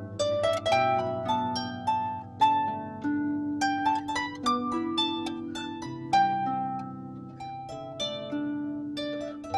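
Clarsach, a small Scottish harp, played solo: a plucked melody ringing over lower bass notes.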